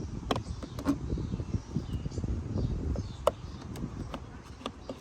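Scattered sharp clicks and knocks of plastic door trim being handled and pried off a car's interior door panel, over a steady low rumble.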